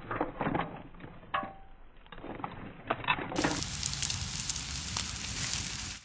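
A few clicks and knocks of a knife and shellfish in a metal pot. Then, about three seconds in, a steady crackling sizzle of ormers (abalone) frying in butter with a little oil in a hot frying pan.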